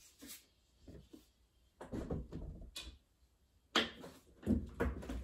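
Handling sounds at a wooden bookcase: a few scattered knocks and rustles as a glass-fronted cabinet door is shut and a hardcover book is handled.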